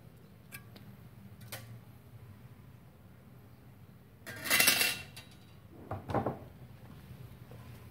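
Thin steel sheet sample clattering as it is handled and set down: a few faint clicks, then one loud metallic clatter lasting under a second, and a shorter second clatter about a second and a half later.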